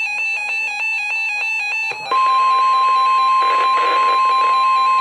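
Weather radio alert: a receiver's rapidly pulsing two-tone alarm beeps. About two seconds in, the steady, louder 1050 Hz NOAA Weather Radio warning tone starts and holds over it. The tone signals that a warning message is about to be broadcast.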